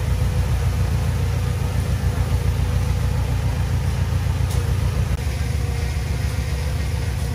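Diesel engine of a bulldozer or dump truck running steadily with a deep, even firing pulse, its level dropping slightly about five seconds in.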